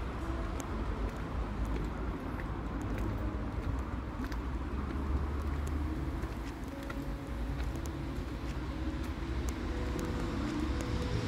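Steady outdoor city ambience: a low rumble of road traffic, with faint scattered clicks.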